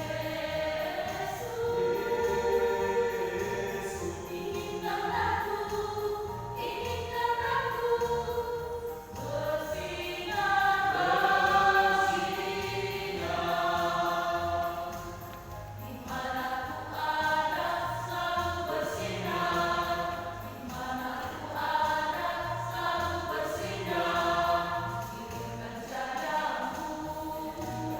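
Singing over instrumental backing music with a regular bass beat, in a gospel-like style with several voices in harmony.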